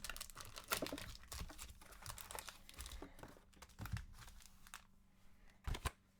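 Trading-card packaging crinkling and tearing as packs are opened and handled: a run of short, faint crackles, with two sharper clicks near the end.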